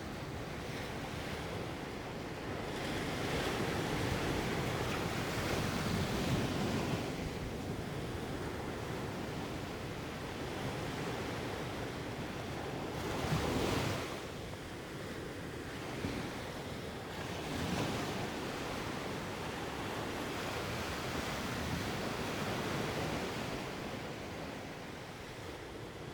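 Ocean surf: waves washing in and drawing back, the noise swelling and fading every few seconds, with the biggest surge about halfway through.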